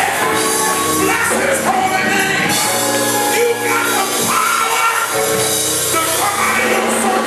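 Live gospel praise music, with singing over held instrumental notes and a tambourine shaking throughout.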